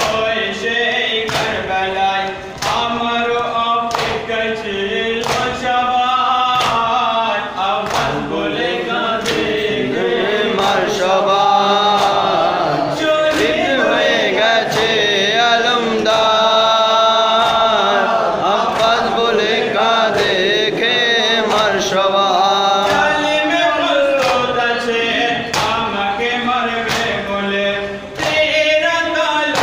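A group of men chanting a nauha in unison, with sharp chest-beating slaps (matam) keeping a steady beat of about one a second.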